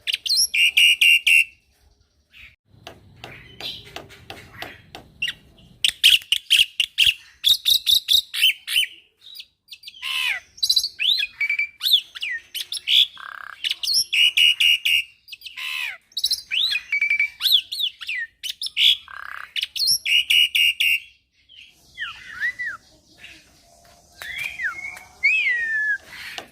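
A young black-winged myna singing: rapid harsh chattering rattles alternating with whistled notes that slide up and down, delivered in repeated bursts with short pauses. The song is rich in inserted phrases, the 'full isian' song used to tutor other birds.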